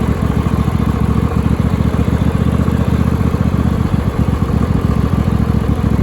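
A Cub Cadet lawn tractor's 26 hp Briggs & Stratton V-twin engine running steadily as the tractor drives, with a fast even firing beat.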